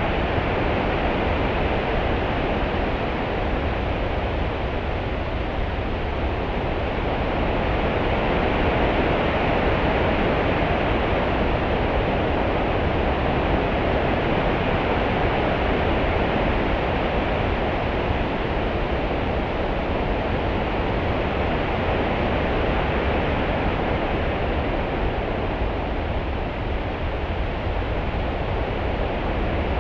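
Steady open-sea water ambience: a continuous wash of swell and ripples with a deep underlying rumble, rising and easing only slightly and slowly, with no distinct breaking waves.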